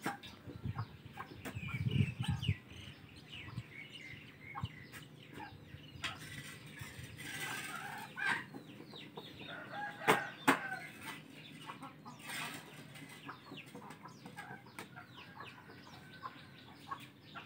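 Chickens clucking in the background, with scattered clicks and scrapes of a spatula against a wok. There is a low thump about two seconds in and two sharp clacks around ten seconds in.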